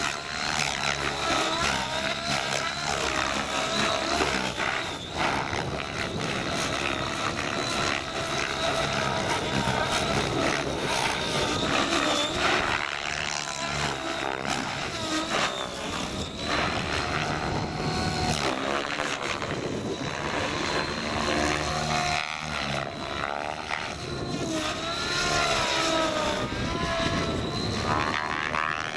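Radio-controlled model helicopter flying aerobatics, its motor and rotor whine rising and falling in pitch as it manoeuvres.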